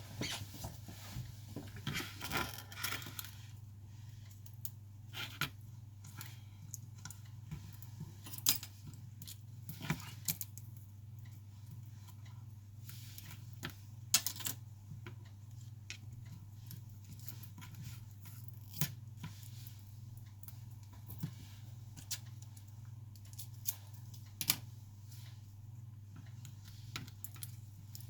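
Scattered light clicks and taps of small hand tools and parts against an iPhone being opened for a battery replacement, with a short scraping rustle about two seconds in and a few sharper clicks later, over a steady low hum.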